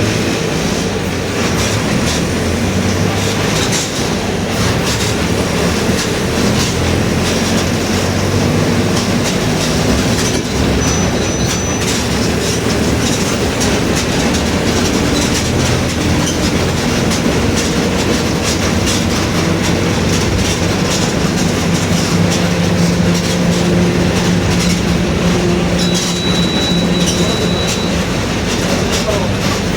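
Inside a moving Mercedes-Benz OF-1721 BlueTec 5 city bus: the front-mounted diesel engine runs under way over steady road and body rattle noise, with the differential growling.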